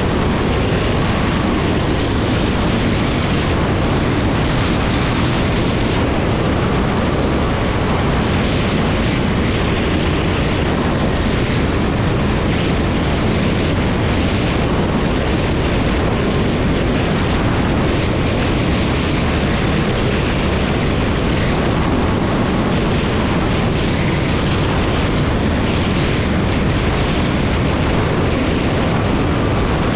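Weight-shift microlight trike in flight: its engine and rear pusher propeller run steadily at cruise, mixed with heavy wind rush over an exposed microphone.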